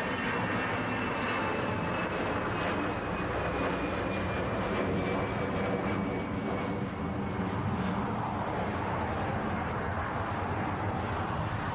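Boeing 787 Dreamliner on short final for landing, its twin turbofan engines giving a steady rushing roar with a high whine that slowly falls in pitch over the first several seconds.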